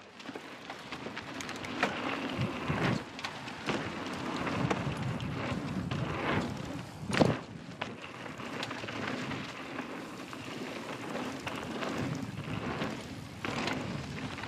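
Mountain bike rolling fast down a dirt and rock trail: a steady rush of tyre noise with scattered knocks and rattles from the bike, and a heavier thump about seven seconds in.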